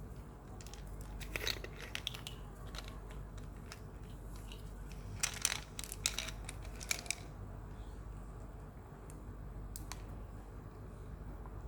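Slime being kneaded and squished by hand, giving bursts of wet crackling and popping about a second in and again around the middle, with scattered single clicks between.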